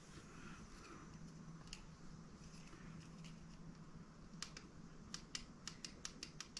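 Faint room tone, then from about halfway a quick run of small, sharp clicks, several a second, as the plastic dashboard panel and wiring of a scale model car are handled.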